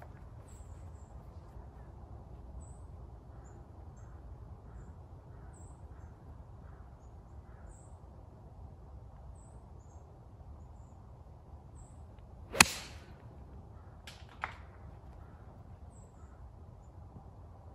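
A golf club striking a teed golf ball: one sharp crack about twelve and a half seconds in, followed a second and a half later by two much fainter clicks.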